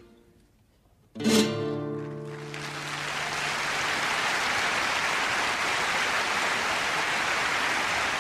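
A final strummed chord on an acoustic guitar about a second in, closing the song, then audience applause that swells and holds steady.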